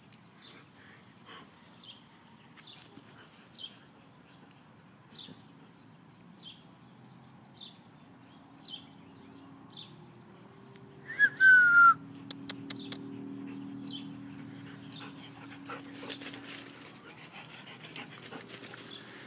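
Dogs at play: a German shepherd and a miniature poodle puppy. About eleven seconds in a loud, high whimpering yelp falls in pitch, followed by several seconds of low rumbling growl; before it, faint short high chirps repeat about once a second.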